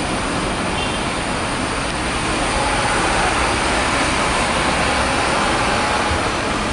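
City street traffic noise: a steady hiss of tyres on wet road with vehicle engines, swelling slightly from about two and a half seconds in.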